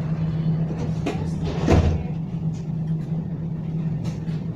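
Steady low hum inside a tram's passenger cabin, with a single loud thump a little under two seconds in.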